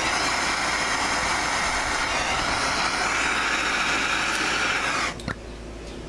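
MAPP gas hand torch burning with a steady hiss as its flame heats a padlock, cutting off abruptly about five seconds in.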